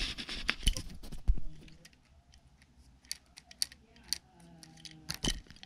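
Small toys being handled, clicking and tapping against each other: a string of sharp little clicks, with a few louder knocks in the first second and again near the end.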